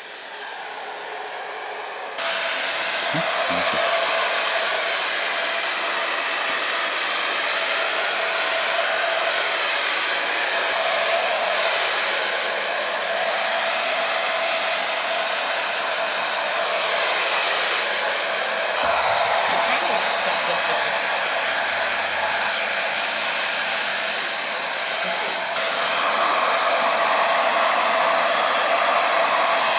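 Hand-held hair dryer blowing steadily with a constant whirring hum. It gets louder about two seconds in and a little louder again near the end.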